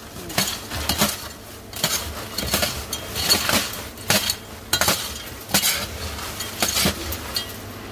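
Salted and caramel popcorn rustling and clattering as it is tossed and mixed by hand, in irregular bursts about every half second to a second.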